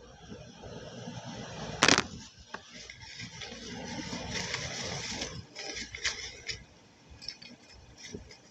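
Multani mitti clay being mixed into a paste, with scraping and rustling handling noises. There is a sharp click about two seconds in and a few lighter clicks near the end.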